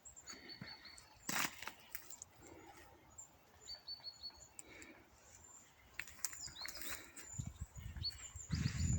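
Small forest birds giving short, high chirps, twice in quick runs of four or five notes, with scattered sharp clicks. Low rustling thumps, like steps through forest litter, build up near the end.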